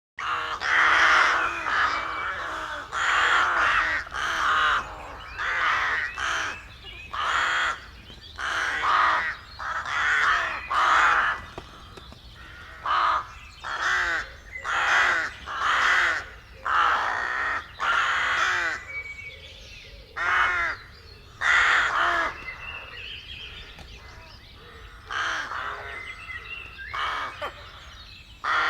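Birds giving a long series of short, harsh calls, about one to two a second. The calls thin out after the middle and pick up again near the end.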